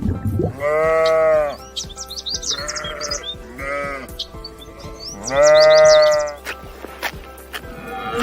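Sheep bleating: two long, loud bleats about a second and five seconds in, with two shorter, fainter bleats between them, over background music.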